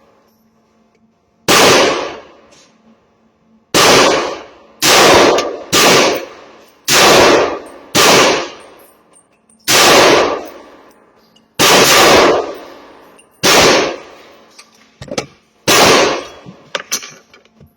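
A string of gunshots, about a dozen loud sharp reports at uneven spacing, some coming close together, each trailing off in a short echo.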